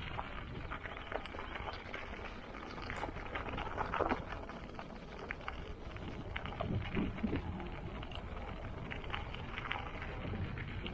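Bicycle being ridden: a steady low rumble of wind on the microphone with many small clicks and rattles from the bike, a few sharper ones about four seconds in.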